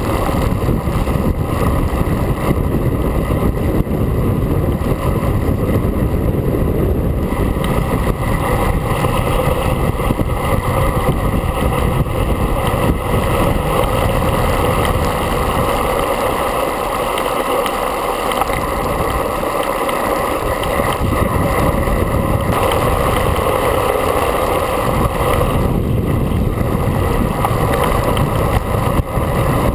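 Loud, steady wind rush buffeting the microphone of a handlebar-mounted camera on a road bike moving at speed.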